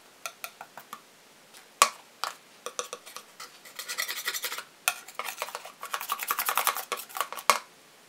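Small metal palette knife clicking and scraping while loading white acrylic paint: a few scattered clicks, one sharp click just under two seconds in, then a quick run of scraping and tapping that stops abruptly near the end.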